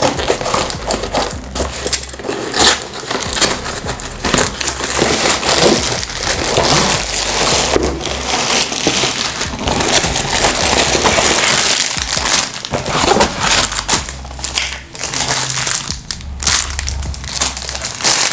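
Scissors cutting through a long cardboard box, then the box being pulled open and plastic-wrapped parts slid out: continuous irregular scraping, rustling and crinkling of cardboard and plastic wrap.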